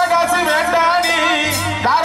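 Live band playing a Tamil song through a PA: drums, bass guitar and keyboard under a male lead vocal.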